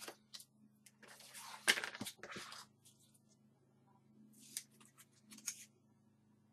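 Crackling and rustling of paper and card in two short spells, the sharpest crackle about two seconds in: backing being peeled from an adhesive construction strip and grey chipboard pieces being handled.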